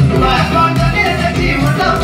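Dance music with a steady beat, played loud.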